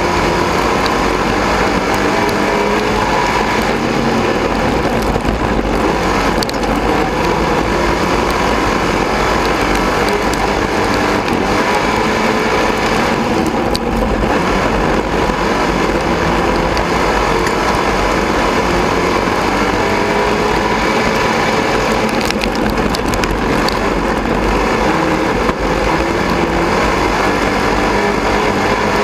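Dirt-track sport modified race car engine running hard under racing load, heard from inside the cockpit. It is loud and steady, with its pitch wavering a little as the throttle is worked through the turns, mixed with a dense rush of track and wind noise.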